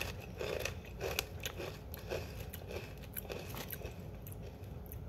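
A person chewing a thin, crunchy stick cracker like a mini breadstick: a run of crisp crunches, about two or three a second, thinning out toward the end.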